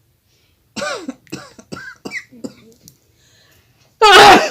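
A woman sneezing, brought on by chili in her nose: a few short gasping catches in the breath, then one loud explosive sneeze about four seconds in.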